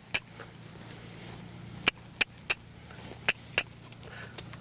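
A handler's tongue clicks urging a horse forward: about six short, sharp clicks, falling in quick runs of two or three about a third of a second apart.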